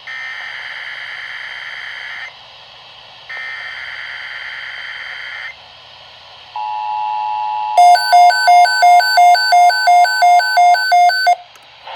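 Emergency Alert System tones: two bursts of the digital header's warbling data tones, each about two seconds long, then a steady two-note attention tone from about six and a half seconds in. From about eight seconds a rapid beeping, about four beeps a second, sounds over it, and everything cuts off suddenly near the end.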